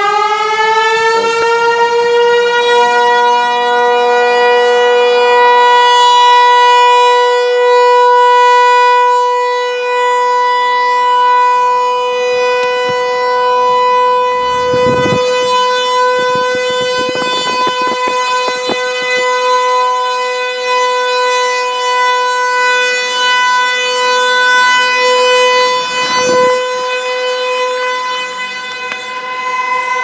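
Outdoor warning siren sounding a steady alert tone. Its wind-up tops out right at the start, and it then holds one pitch with strong overtones, swelling and fading a little in loudness.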